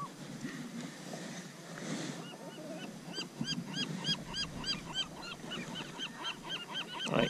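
Spinning reel cranked fast, squeaking rhythmically at about four to five squeaks a second, each squeak rising and falling in pitch. The squeaking starts about two seconds in, after a low rumble of wind and water.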